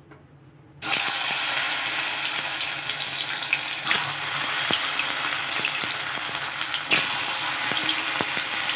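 Batter-coated baby corn deep-frying in hot oil in a frying pan: a sizzle that starts suddenly about a second in as the pieces go into the oil, then keeps up steadily with scattered pops and crackles.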